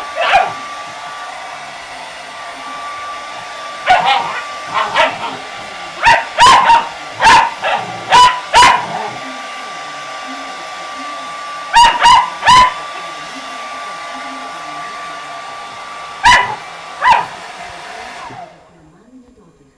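Hair dryer running with a steady hiss and a faint whine while a golden retriever puppy barks at it again and again in short bursts of two or three. The dryer switches off near the end.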